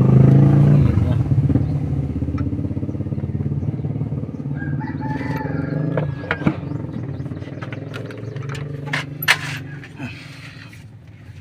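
Diesel engine of a freshly top-overhauled Kia running with an even, rapid pulse, growing quieter over the seconds. A few sharp clicks or knocks come through in the second half.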